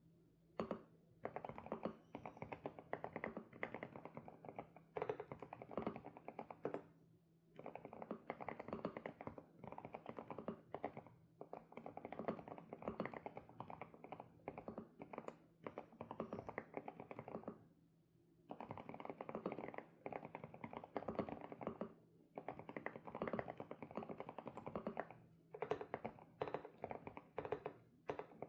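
Typing on an SPM PL108W mechanical keyboard with Sunset switches: rapid keystroke clacks in runs of a few seconds, broken by short pauses.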